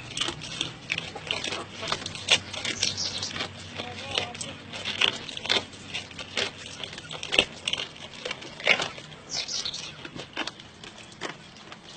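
A goat chewing fish: irregular crunching and crackling clicks.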